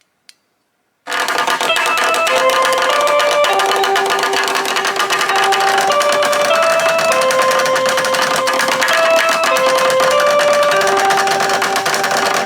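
A faint click, then about a second in the Echo Chime300 doorbell receiver plays a loud electronic chime melody of single notes, with a noisy hiss under it.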